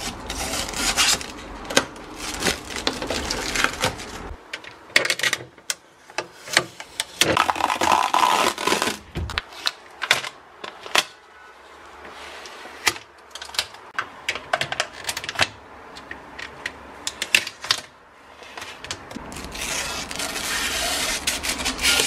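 Protective plastic film being peeled off a new Samsung refrigerator's plastic door bins and shelves: crackling, ripping film in spells, with many sharp clicks of the plastic parts.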